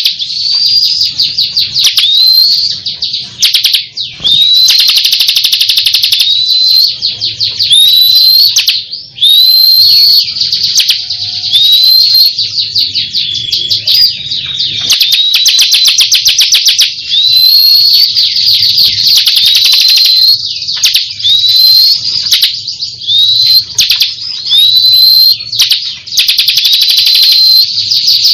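Bar-winged prinia (ciblek kristal) singing nonstop: a loud, fast chattering song of rapid ticking trills, broken every second or two by a rising whistled note.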